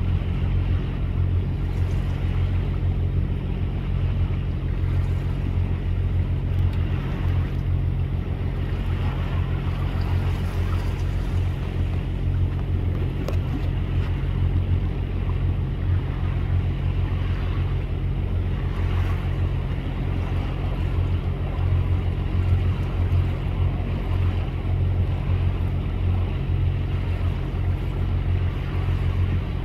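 Steady low hum of a motorboat engine running at constant speed, with wind and water noise.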